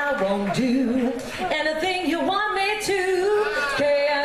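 A woman singing unaccompanied into a handheld stage microphone, holding long notes with vibrato.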